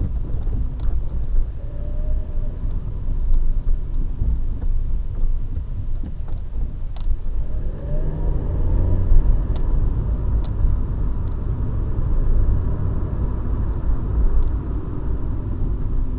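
Road and engine noise inside a moving Volkswagen Polo, picked up by the dashcam's built-in microphone: a steady low rumble. About eight seconds in, the engine note rises as the car speeds up, and a few faint clicks come through.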